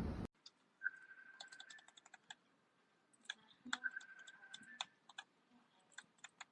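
Quick, quiet, irregular clicks from a wireless mouse's buttons, with a faint steady high tone in stretches. A hiss cuts off suddenly right at the start.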